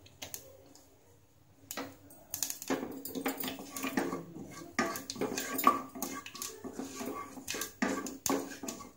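Wooden spatula stirring frying spices in a small nonstick saucepan, making irregular knocks and scrapes against the pan. The stirring starts after a quiet second or two.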